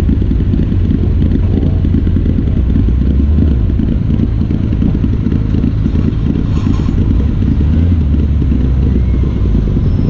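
BMW E30 rally car's engine idling with a steady low rumble while the car creeps forward at walking pace, with no revving.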